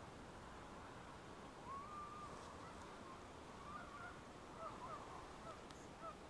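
Faint honking calls of distant geese, several short calls starting about two seconds in, over a steady background hiss.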